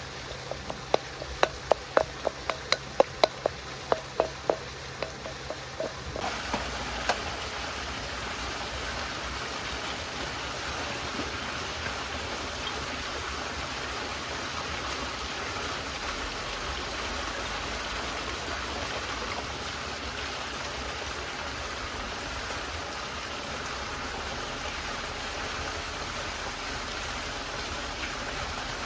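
Stream water flowing steadily. It comes in suddenly about six seconds in, after a quick series of short, sharp, ringing sounds at about two or three a second.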